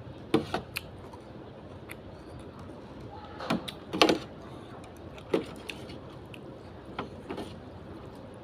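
Scattered eating noises: a handful of short clicks and clinks of utensils on a bowl along with mouth sounds, the loudest about four seconds in.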